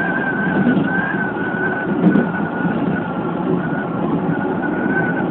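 A Keikyu 2100-series electric train running, heard from inside the front car: a steady rumble of wheels on rail with a steady, slightly wavering high whine, and one short click about two seconds in.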